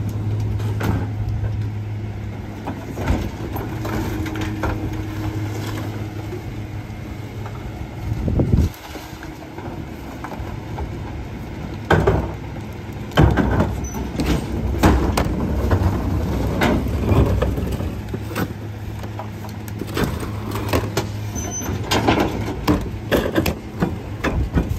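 Rear-loading garbage truck's engine idling with a steady low hum while trash carts are tipped into the hopper by hand: repeated bangs and knocks of the plastic carts against the hopper and trash dropping in, with one loud bang about 8 seconds in and many more from about 12 seconds on.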